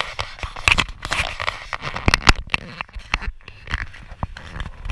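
Handling noise from a carried camera: irregular clicks, knocks and crackles.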